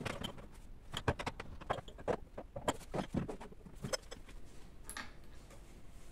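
Small decorative objects, ceramic pots and candle holders, being handled and set down on a shelf: a run of irregular light knocks and clicks, with a sharper ringing clink about five seconds in.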